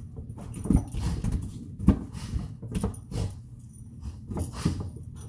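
A yellow Labrador playing with a large rubber ball on a carpeted floor: irregular soft thumps and knocks from the ball and the dog's paws, along with sounds from the dog itself.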